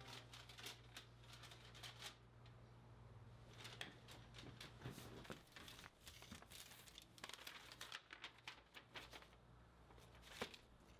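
Sheets of paper rustling and crinkling as they are handled and unfolded, over a faint steady low hum, with one sharper click near the end.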